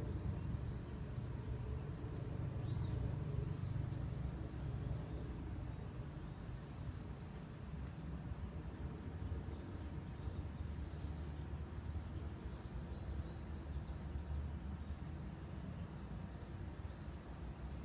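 Outdoor ambience: a steady low rumble, with faint high bird chirps now and then.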